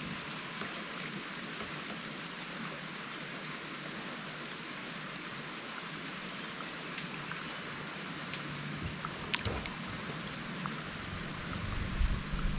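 Steady outdoor hiss with a few faint clicks. Near the end come low knocks and bumps as a fishing rod is handled in a wooden boat.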